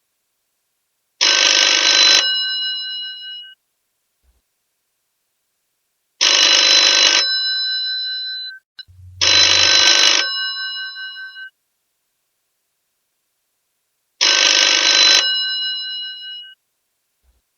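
Old mechanical telephone bell ringing: four rings of about a second each, the second and third close together, with the bells ringing on briefly after each ring and silence between.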